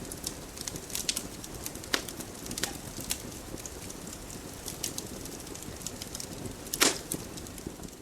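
Wood fire burning in a fireplace: a steady rush of flames with scattered sharp crackles and pops, the loudest pop about seven seconds in.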